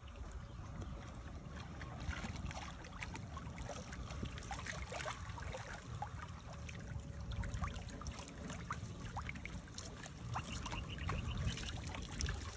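Water dripping and trickling off a fishing net as it is hauled hand over hand into a wooden boat, with many small scattered drips and splashes over a low steady rumble.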